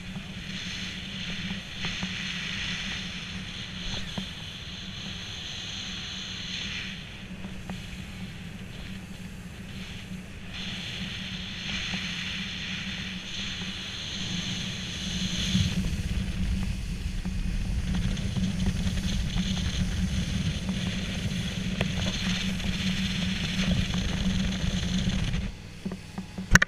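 Small motorboat under way: its engine runs at a steady hum while water rushes and hisses past the hull and wind buffets the microphone. The sound grows louder and heavier about halfway through.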